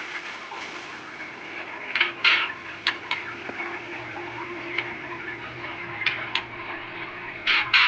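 Young white-rumped shama chick, about 17 days old, giving short sharp chirps in scattered clusters, about two seconds in and again near the end, over a steady low hum.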